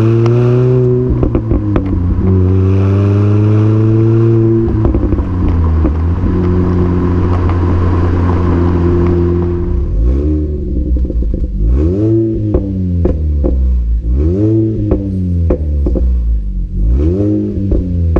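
Supercharged four-cylinder engine of a Mini Cooper S R53, fitted with an Alta cat-back exhaust, Alta intake and Alta 17% supercharger pulley. It accelerates, with pitch rising and dropping at two upshifts, then cruises at a steady pitch. After about ten seconds it is revved in quick blips, about one a second.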